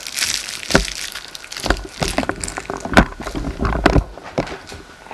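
Cellophane cigarette-pack wrapper crinkling and crackling in hand, with irregular knocks and clicks of the camcorder being moved.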